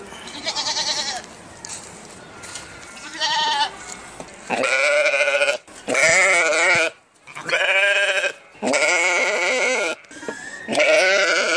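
Sheep bleating repeatedly: about seven long, quavering bleats, each half a second to a second long, with short gaps between them.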